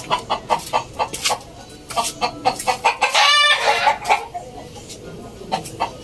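Chickens clucking in short clipped notes, with one loud pitched call about three seconds in.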